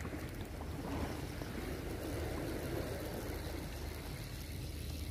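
Steady wind rumble on the microphone with gentle shallow seawater.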